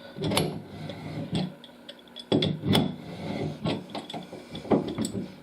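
Cartridge puller and adjustable wrench working at an old Moen shower cartridge that is stuck in the valve body. Irregular metal clicks, knocks and short scrapes as the tool is turned.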